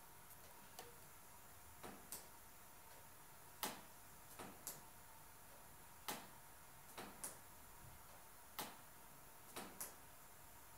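Faint, sharp clicks at uneven intervals of a second or two, several of them in quick pairs, over near-silent room tone.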